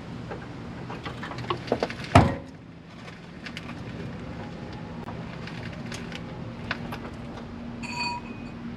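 Car door of the 2004 Suzuki XL-7 shutting with a thud about two seconds in, after a few smaller clicks, over a low steady hum. Near the end, the car's short electronic warning chime sounds once.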